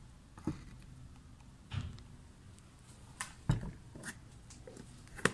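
A few light knocks and clicks of plastic containers being handled and set down on a table, the loudest about three and a half seconds in.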